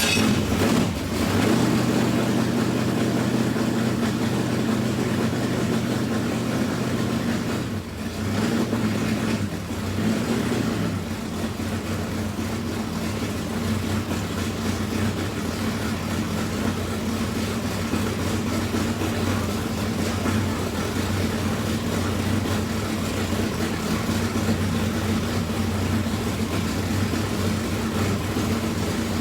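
Buick's engine just after firing up, running a little unevenly with a brief dip about eight seconds in, then settling into a steady idle. It is the car's first run after weeks of sitting on the lift for body work.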